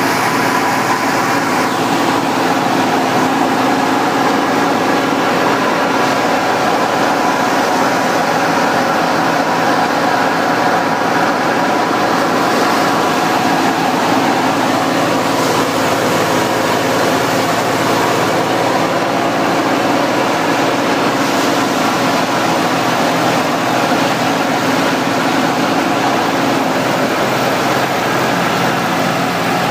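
Tractor-driven wheat thresher running steadily, its drum spun by a set of V-belts from the Al Ghazi tractor, together with the tractor's diesel engine running. A continuous, even mechanical drone with many steady tones, not changing through the stretch.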